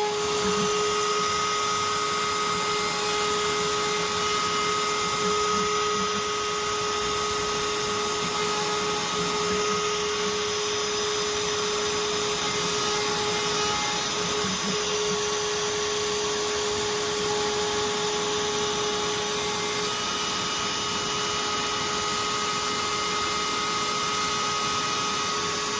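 Desktop CNC router's spindle running and an end mill cutting aluminium: a steady high whine with several fixed tones over a hiss of cutting noise, shifting slightly a few times as the cut changes.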